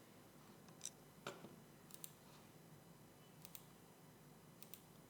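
Faint computer mouse clicks against near-silent room tone: a few single clicks and three quick pairs like double-clicks.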